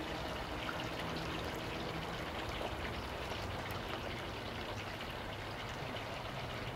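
Russet potato fries deep-frying in canola oil in a cast iron Dutch oven during their first fry: a steady, hard-bubbling sizzle with many small crackles.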